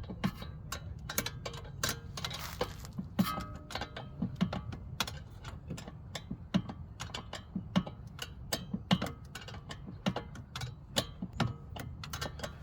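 Locking grip pliers working a rear brake caliper bolt, making a run of irregular metal clicks and clinks, about two or three a second, over a steady low hum.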